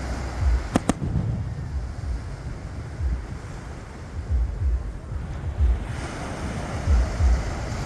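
Fireworks display: irregular deep booms of shells bursting, with two sharp cracks about a second in, over a steady rush of wind and surf.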